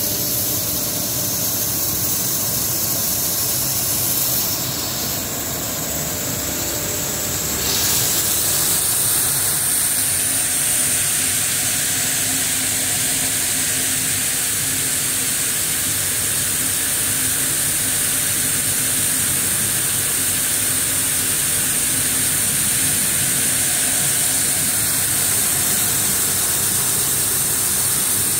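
Plastic recycling pelletizing line running: a steady mechanical hum under a loud airy hiss. About eight seconds in, the hiss turns louder and higher-pitched and holds steady.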